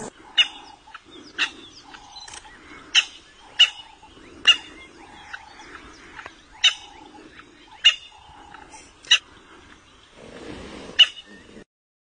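A series of about ten short, sharp animal calls at irregular intervals over a fainter, lower background murmur.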